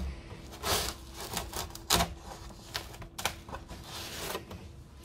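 Putty knife working between a fridge door's plastic liner and its glued-in seal, breaking the adhesive: irregular scraping with sharp plastic clicks, the loudest about two seconds in and again about a second later.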